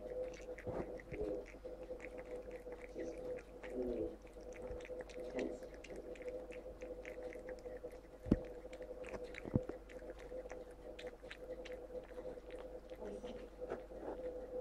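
A cat licking and lapping crème fraîche from a saucer: a rapid run of small wet licks and mouth smacks, with two sharper clicks about eight and nine and a half seconds in. A steady hum runs underneath.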